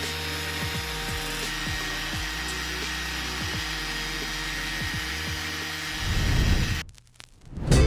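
The small portable engine of a two-person tea harvester running steadily, driving its cutter bar through the bushes. About six seconds in, a louder swell takes over, cuts out briefly, and music begins.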